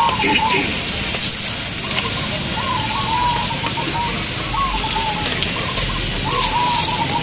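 Caged zebra doves (perkutut) cooing, their rippling arched phrases coming again every second or two over a steady high background hiss. A thin high whistle sounds briefly about a second in.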